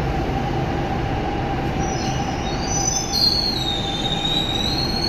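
Delhi Metro train running on its track with a steady rumble and hum. About two seconds in, a high wavering wheel squeal starts and grows louder.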